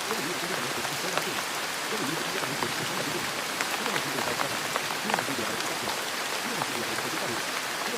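Steady rain, an even hiss with many small drop ticks scattered through it.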